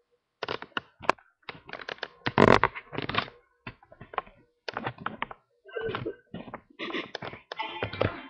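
Irregular clicks, taps and knocks close to the microphone, with one louder thump about two and a half seconds in.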